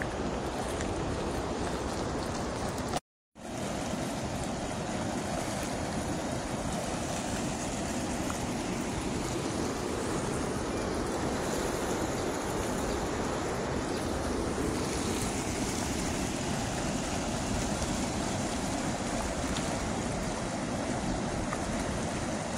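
Steady rush of fast-flowing river water, broken by a brief total dropout about three seconds in.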